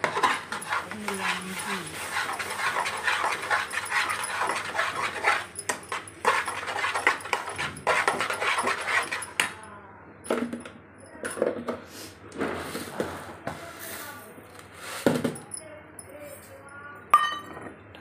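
Metal spoon stirring and scraping halwa as it roasts in ghee in a steel kadai, with dense crackly sizzling and scraping for the first half. The second half has scattered scrapes and knocks with short whimpering sounds.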